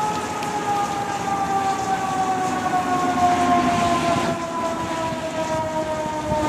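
Fire engine siren winding slowly down in pitch on one long steady fall, with the noise of the approaching rig and traffic underneath that swells around the middle.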